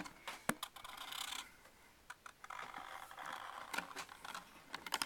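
Felt-tip marker scratching on paper in strokes, in two stretches with a short pause between, along with a few light taps and clicks.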